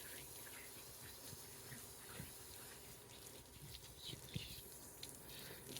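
Faint, steady hiss of water from a hose-fed shower-head spray nozzle running through a dog's wet fur, with a few small knocks and one sharper click about four seconds in.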